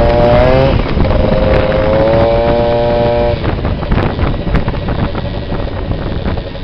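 Two-stroke Yamaha BW's scooter engine with a Stage6 Racing kit and Athena Evo exhaust, running hard under way with a steady, slightly rising exhaust note. The note fades about three and a half seconds in.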